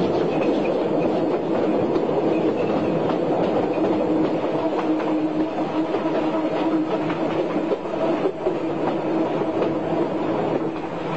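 Mountain bikes rolling over a gravel track: a steady rumble of tyres on loose stones, with the dense crunch and rattle of gravel and bike frames.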